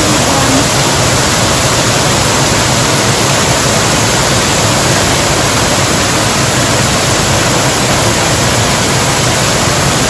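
Steady, loud rush of falling water from a man-made waterfall pouring into a pond.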